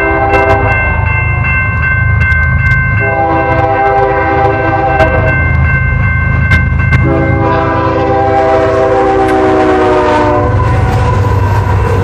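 Union Pacific freight locomotive's air horn sounding a crossing signal: a blast ending about a second in, then two more long blasts about two seconds apart, the last held longest and sagging slightly in pitch as the train nears. A grade-crossing warning bell rings steadily throughout, over the low rumble of the diesel locomotives and train.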